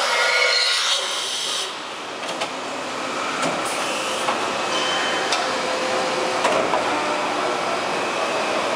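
Heller PFU 3 bed-type milling machine running. There is a louder hiss with a faint whine for the first second and a half, then an even running noise with scattered clicks.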